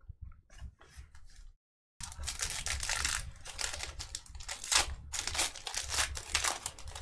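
Foil wrapper of a trading card pack crinkling and tearing as it is opened, a dense crackle that starts about two seconds in after a few faint taps of cards being handled.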